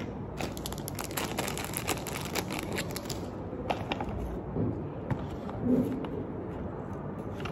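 Small plastic test-kit parts and their clear plastic packaging being handled: a dense run of crinkling and clicking for about the first three seconds, then a few scattered clicks, with a short low hum about six seconds in.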